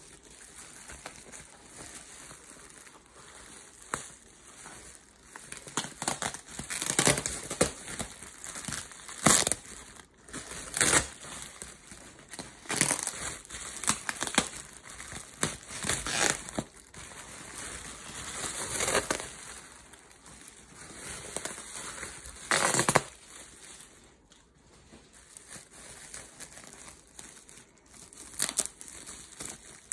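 Plastic bubble wrap crinkling and rustling in irregular bursts as it is handled and pulled off a wrapped doll, loudest about ten seconds in and again just before the three-quarter mark.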